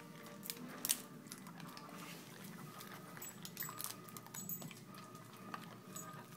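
Vizsla biting and chewing a dried duck jerky treat held in a hand: irregular crunches and sharp clicks of teeth, with light metallic jingles of its collar tag.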